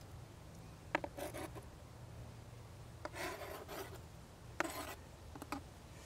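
A knife scraping minced garlic off a plastic cutting board into a cast iron Dutch oven: several short scraping strokes, a few of them starting with a sharp tap.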